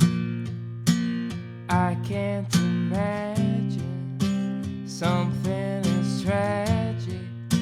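Acoustic guitar strummed in a steady rhythm, with a strum roughly every second. About two seconds in, a man's voice starts singing over it.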